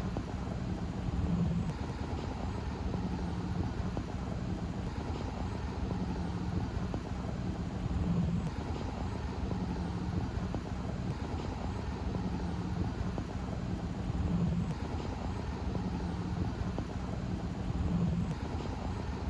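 Steady low rumble of vehicle engines, with wind noise on the microphone and a low hum that swells briefly every few seconds.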